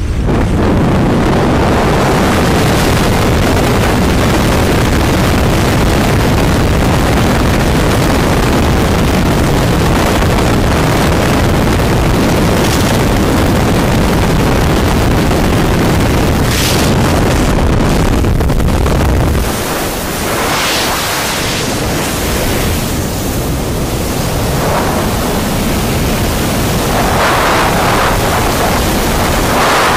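Loud wind rushing over the microphone: first the slipstream and aircraft noise at the open door of a skydiving plane, then, after a sudden drop in the deep rumble about two-thirds of the way through, the wind of freefall.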